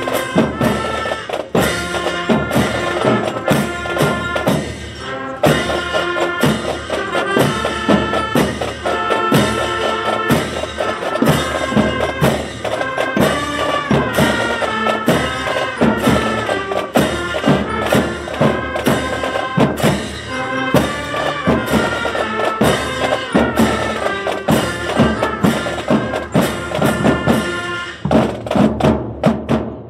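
Music: a melody over a steady percussion beat. Near the end the melody drops out, leaving only the percussion.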